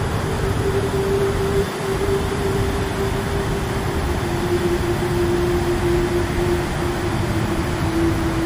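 Steady roar of a large river waterfall, white water pouring over rock ledges. A single held tone from background music sits beneath it, slowly sinking in pitch.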